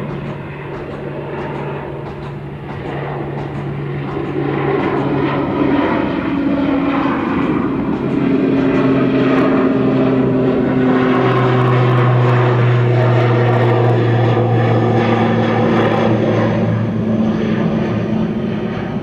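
ATR 72-600 turboprop climbing out overhead: the steady humming drone of its two Pratt & Whitney PW127 engines and six-bladed propellers. It grows louder a few seconds in as the plane comes close, and its propeller hum drops a little in pitch past the middle as it passes.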